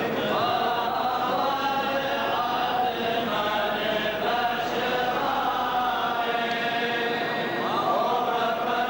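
Several voices chanting a liturgical funeral hymn together, with long held notes that slide from one pitch to the next.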